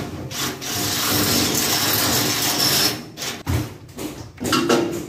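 24 V cordless drill boring a hole through the sheet-steel floor of an electrical panel enclosure, running steadily for about two and a half seconds and then stopping. A few knocks and clatter follow as the drill is lifted and moved.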